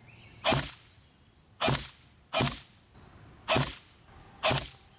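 Barra 400E electric BB rifle (battery-powered AEG shooting .177 steel BBs) fired five single shots at uneven intervals of about a second, each a sharp snap with a short tail.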